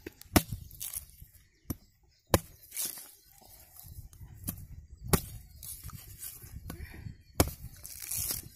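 Machete chopping into the husk of a green tender coconut: several sharp chops at uneven intervals.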